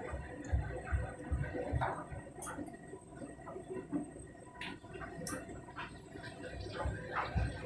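Candy Grand'O Vita washing machine tumbling its empty drum on a rinse cycle: water splashing and sloshing inside, with irregular soft low thuds and a few light clicks.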